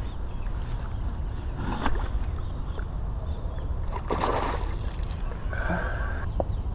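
A hooked fish splashes at the water's surface about four seconds in, over a steady low wind rumble on the microphone.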